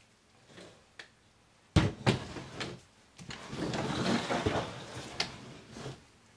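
Wooden soap loaf mold set down on a tabletop with a sharp knock, followed by a couple of smaller knocks and a few seconds of scraping as it is shifted into place, with one more knock about five seconds in.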